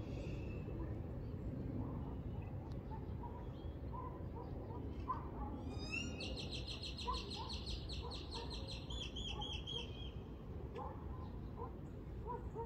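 A songbird singing a rapid trill of evenly repeated high notes about halfway through, lasting some four seconds and ending on a lower, slower phrase, over a steady low background rumble.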